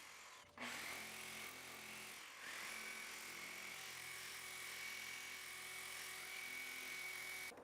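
Faint steady motor hum with a thin, even high whine over a hiss.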